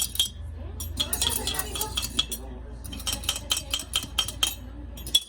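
A drink being stirred: rapid clinks of a fork against a cup, in three quick runs with short breaks between.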